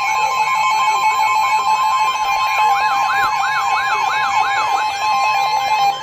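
Several NOAA weather alert radios sound their warning alarms together for a severe thunderstorm warning. A steady alert tone mixes with a fast on-off beeping and a siren-like whoop that rises and falls about two to three times a second. The whoop and the beeping stop about five seconds in, leaving the steady tone.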